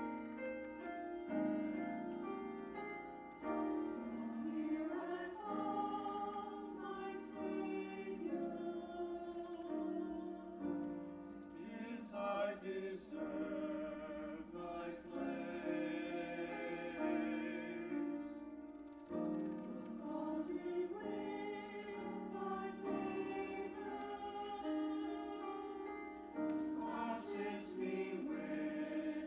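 A choir singing sacred music in long, held notes, some with a wavering vibrato.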